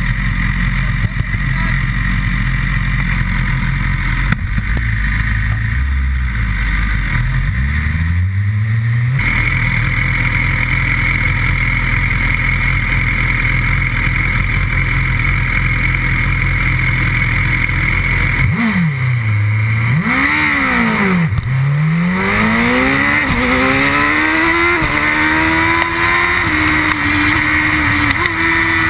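Superbike engine heard from onboard: a steady engine hum, then about two thirds of the way in the bike launches off the race start and accelerates hard. Its pitch climbs in repeated rises, each broken by an upshift, with wind noise over the engine.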